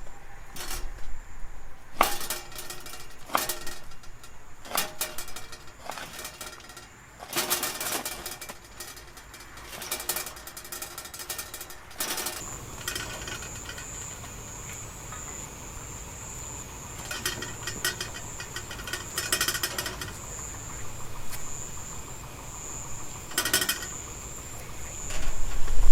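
Irregular clicks and knocks, like gear being handled, fill the first half. About halfway in a steady, high-pitched insect trill of grass bugs starts and carries on, with a few more bursts of clattering over it.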